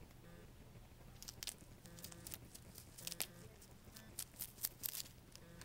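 A rabbit biting and chewing a crisp Chinese cabbage leaf: a run of quick crunches and tearing snaps that starts about a second in.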